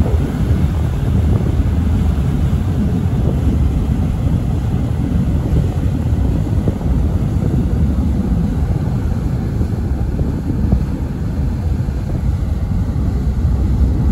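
Steady low rumble of a cargo ship's engine and propeller churning its wake, mixed with wind buffeting the microphone.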